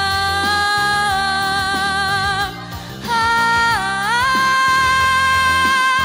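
A young girl's voice singing two long held notes with vibrato over a backing track. The first note ends about two and a half seconds in; after a short break the second dips, then rises higher and is held to the end.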